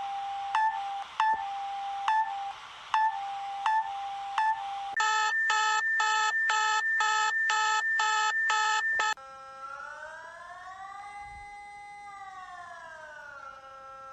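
Synthesized emergency-alert-style alarm tones in three parts. First a steady electronic tone broken by short, loud chirps about every 0.7 s. Then, about five seconds in, a rapid on-off beeping chord of several tones, about two beeps a second, followed about nine seconds in by a held chord that slowly glides up in pitch and back down.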